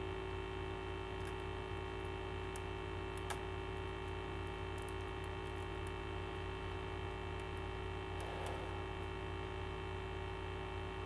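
Steady electrical mains hum, with a few faint clicks and a brief faint rustle of hands on the box set's packaging.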